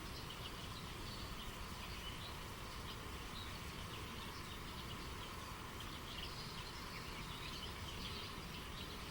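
Steady rush of flowing river water, with small birds chirping in many short, scattered calls.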